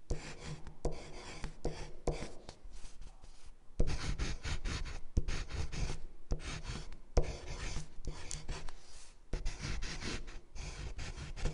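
A marker writing on paper, in runs of scratchy strokes broken by short pauses.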